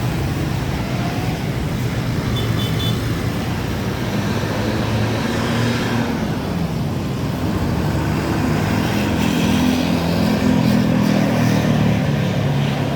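Large bus engine running amid road traffic noise, its low drone growing louder about eight seconds in.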